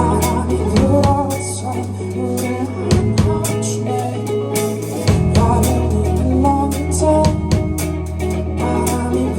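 Live band music: a drum kit keeping a steady beat under bass and guitar, the bass note changing about every two seconds.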